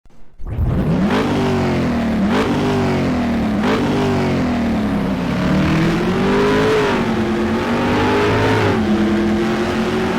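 Car engine revved in three quick blips, then a slower rise in revs that eases off to a steady note.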